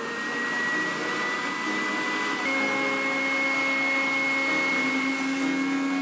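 Homemade plastic-bottle vacuum cleaner running: its 12 V DC motor, fed 20 V and spinning a tin-lid fan, gives a steady high whine over a rush of air as it sucks up styrofoam bits. The whine steps slightly higher about two and a half seconds in.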